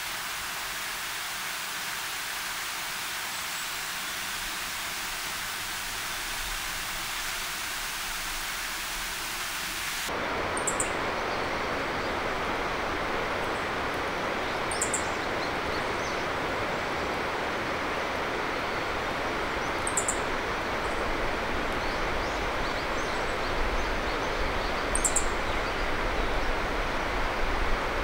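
A steady hiss changes abruptly, about a third of the way in, to a fuller, lower rushing noise. Over it a male meadow bunting gives short, very high 'chi-chi' calls of two or three notes, four times, about five seconds apart.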